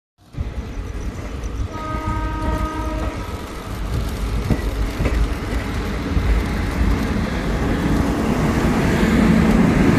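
An O-gauge model train, a Pennsylvania Railroad GG1 electric locomotive model pulling passenger cars, rumbles along three-rail tubular track, growing louder as it passes close. About two seconds in, a train horn sounds for about a second.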